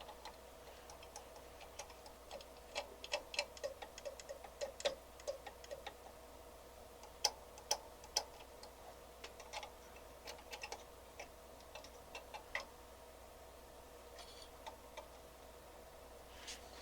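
Faint, irregular clicks and ticks from a probe being touched around a stereo receiver's circuit board in search of an intermittent transistor noise. A few clicks are louder, and a faint steady hum runs underneath.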